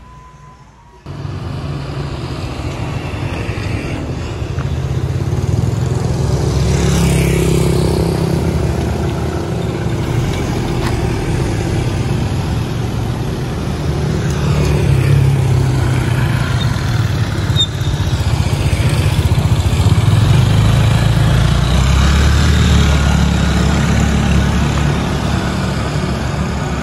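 Steady low rumble of motor vehicles on a street, starting suddenly about a second in.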